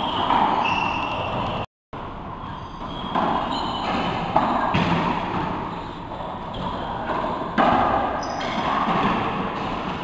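Racquetball rally in an enclosed court: the ball struck by racquets and smacking off the walls and floor, several sharp hits that echo around the court. Short high squeaks from shoes on the hardwood floor come in between, and the sound drops out briefly just before two seconds in.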